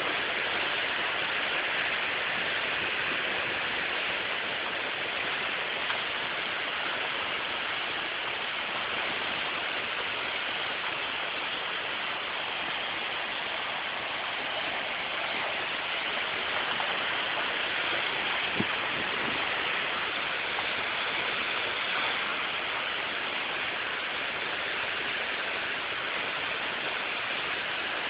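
Mountain stream in flood after a heavy thunderstorm, its swollen water rushing in a steady, unbroken sound.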